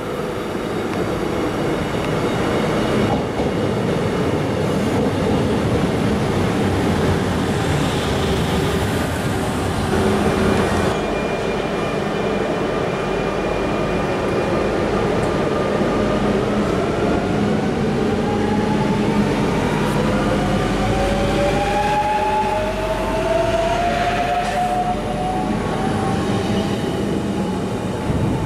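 CP 2200-series electric multiple units: first a steady rumble of the train rolling on the track. About a third of the way in, the sound changes, and another unit pulls away, its traction motors giving several rising whines as it accelerates.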